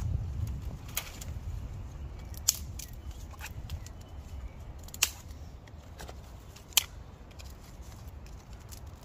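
Dry dead twigs being snapped by hand for kindling: four sharp cracks a second or two apart, the loudest near the end, with a few fainter snaps between.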